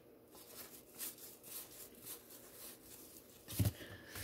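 Faint, scattered flicks and rustles of baseball cards being leafed through by hand, with a thump about three and a half seconds in.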